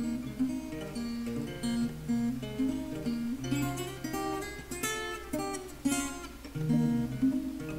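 Instrumental acoustic guitar music: a run of picked notes over lower bass notes.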